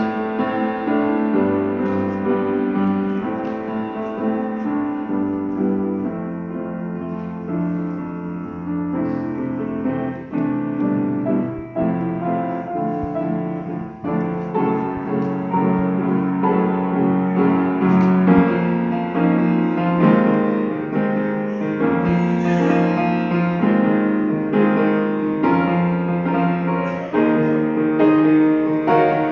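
Solo piano playing a slow piece of sustained chords and melody notes.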